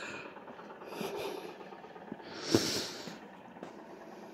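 A person breathing close to the microphone: soft breaths through the nose, the loudest about two and a half seconds in.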